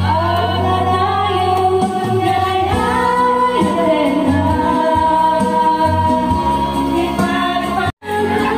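Women singing karaoke into microphones over a backing track played through loudspeakers. The sound cuts out for an instant near the end.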